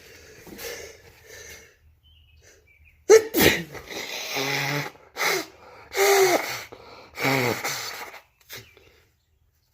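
A man sneezing several times in a row, starting about three seconds in, with loud voiced sneezes and short breaths between. It is a post-run sneezing fit, which he calls being allergic to running.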